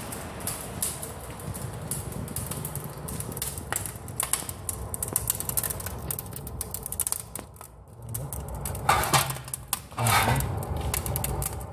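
Wood fire burning hard in a newly built fireplace, crackling with a dense run of sharp pops and snaps.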